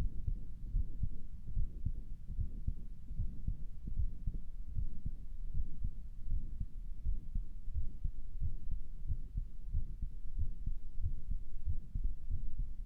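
A person's own heartbeat heard through a stethoscope: a run of low thumps. The owner thinks it sounds weird and wonders whether it is a heart murmur.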